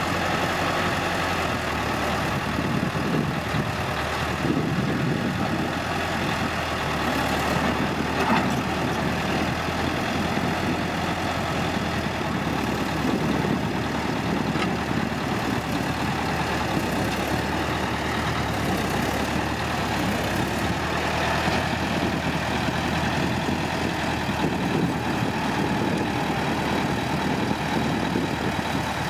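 Heavy diesel engine of earth-moving machinery running steadily, with a brief knock about eight seconds in.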